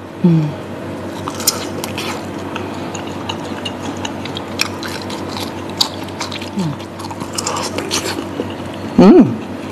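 Close-up biting and chewing of a large beef meatball (bakso) coated in chili sambal: wet mouth clicks and smacks, with a brief voiced murmur about nine seconds in.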